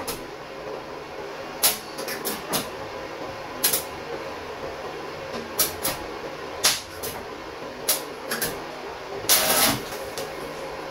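Irregular sharp metallic knocks and clicks from tack-welding work on thin scrap sheet steel, about a dozen, with one longer rough burst near the end, over a steady hiss.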